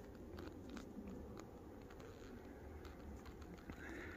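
Faint, irregular crunching footsteps on loose volcanic scree and gravel, with a steady low rumble underneath.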